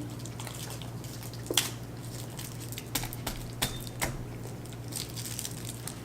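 Eating sounds: chewing with wet mouth clicks and smacks, a few short sharp clicks scattered through, over a steady low hum.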